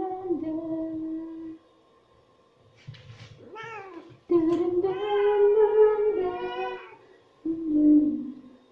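Wet white cat wrapped in a bath towel meowing: a short meow, then a long drawn-out one of about two and a half seconds, and a last meow falling in pitch near the end. A woman hums a flat note at the start.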